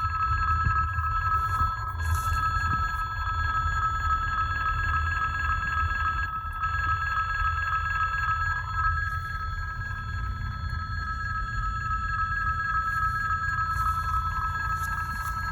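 Railway level-crossing warning signal ringing without a break: a fast, evenly pulsed high ring on two pitches. A low rumble runs beneath it.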